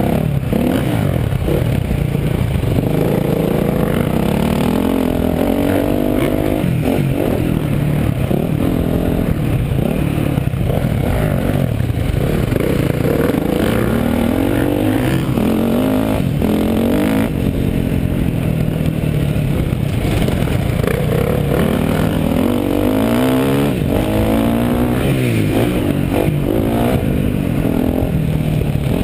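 Dirt bike engine heard from on the bike while racing a motocross track, revving up and dropping back again and again as it accelerates and shifts through the gears.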